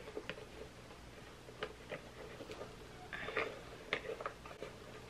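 Faint rustling and scattered light ticks and taps as a lace-up sneaker is worked onto a foot, with a brief louder rustle about three seconds in.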